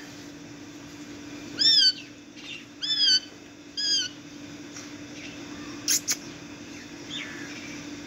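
Green parakeets squawking: three loud, arching calls between about two and four seconds in, a fainter one near the end, with two sharp clicks around six seconds.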